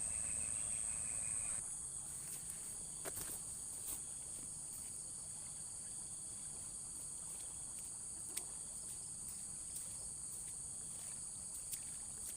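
Faint, steady, high-pitched insect chorus such as crickets or cicadas, with a few soft clicks. A held tone stops about a second and a half in.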